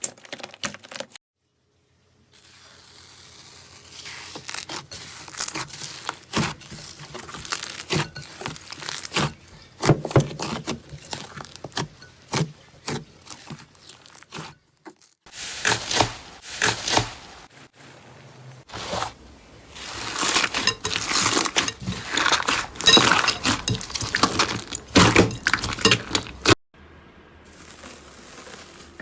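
Slime being squeezed, pressed and poked by hand, giving dense crackling clicks and sticky pops in a run of short clips that cut from one to the next.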